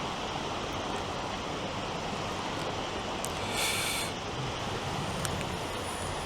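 Steady wash of sea surf on the beach as the tide floods in, with one brief louder hiss a little past the middle.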